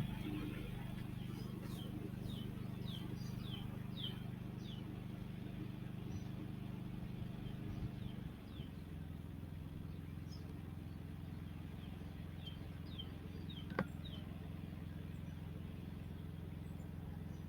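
Westinghouse iGen 4500c inverter generator running steadily, its engine note dropping to a lower speed about eight seconds in as it goes into eco mode. Birds chirp in series of short falling calls over it, and there is a single click near the end.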